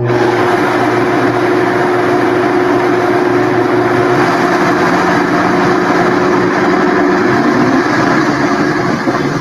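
High-powered countertop blender switched on and running at full speed, grinding soaked lentils, water and psyllium into a smooth, runny batter. Loud, steady motor whine over the churning of the mix, its note rising slightly near the end.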